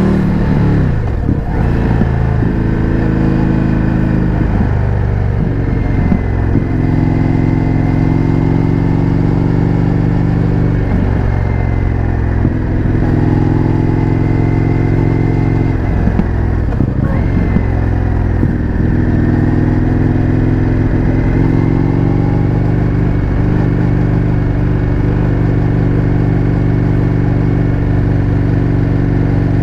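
Indian FTR 1200's V-twin engine through an Akrapovič exhaust, heard from the bike while riding. The engine note falls at the start, dips briefly several times as the throttle is rolled off or gears change, then settles into steady cruising, with the pitch slowly rising near the end.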